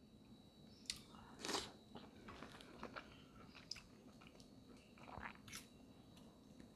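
Faint crunching, clicking and chewing from eating snow crab legs close to the microphone, the shell cracking in scattered sharp crunches. The loudest crunch comes about one and a half seconds in, and another comes about five seconds in.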